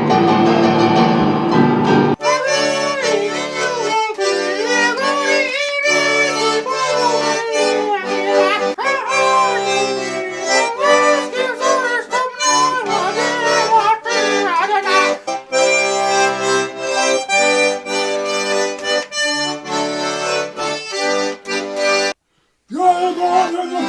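Garmon (Russian button accordion) playing a lively tune: a reedy melody over pulsing bass chords. It comes in about two seconds in, when other music cuts off, and breaks off briefly near the end.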